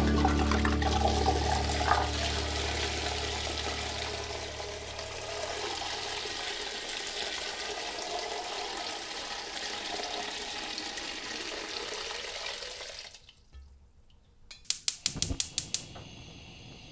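Water running steadily, as from a tap into a vessel, stopping abruptly about thirteen seconds in. A quick run of sharp clicks follows a couple of seconds later.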